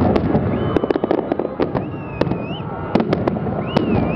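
Fireworks display: rapid, irregular bangs and crackling from many shells bursting close together, with a few wavering whistles over them.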